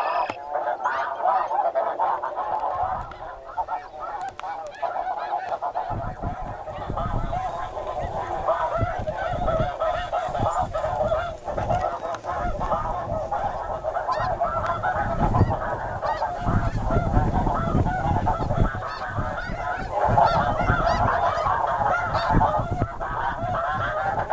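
A large flock of snow geese calling overhead in a dense, unbroken chorus of many overlapping honks. A low rumbling noise joins about six seconds in and swells and fades beneath the calls.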